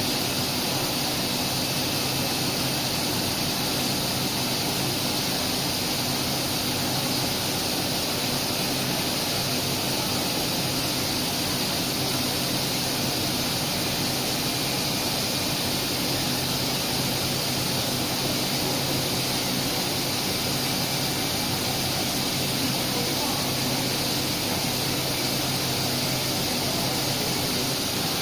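5-axis CNC tool grinding machine running a cycle: a steady hiss with a low, even hum underneath, unchanging throughout.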